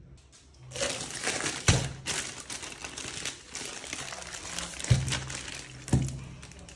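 Crinkling and rustling of a plastic bag around a whole chicken as it is handled and slit open with a knife, with a few sharp thumps, the loudest near the end.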